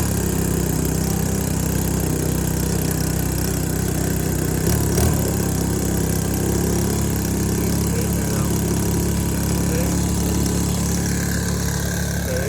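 Small propane-fuelled engine of a radio-controlled boat running steadily, with a brief knock about five seconds in.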